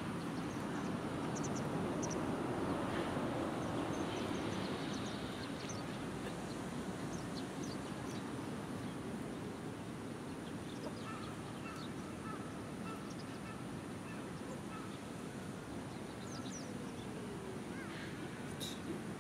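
Steady outdoor background noise, a low hum of distant traffic and wind, with scattered faint high bird chirps.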